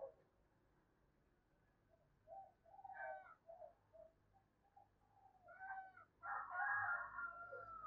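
Spotted dove calls: short, soft cooing notes in the first half, then a louder, drawn-out call near the end.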